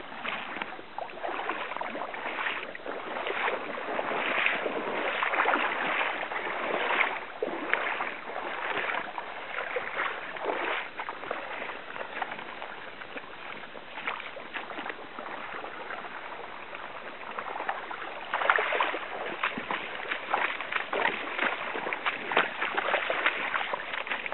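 Shallow salmon stream running and splashing over gravel, a continuous rush broken by many irregular splashes, with a quieter spell about halfway through.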